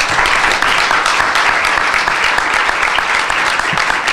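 Audience applauding steadily: a roomful of people clapping at the end of a talk.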